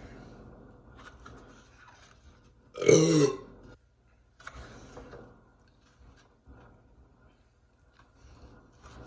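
A person's loud burp about three seconds in, lasting about half a second, with quieter eating noises around it.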